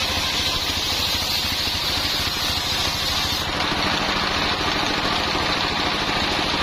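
Stationary diesel engine running steadily, belt-driving a homemade circular saw that is ripping a coconut-palm log, with a steady hiss from the blade cutting. About three and a half seconds in the cutting hiss thins out as the cut ends, leaving the engine and the spinning blade.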